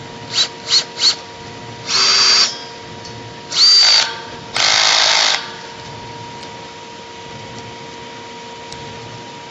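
Power drill run in short bursts: three quick trigger taps, then three longer runs of about half a second to a second each, one spinning up to a high whine.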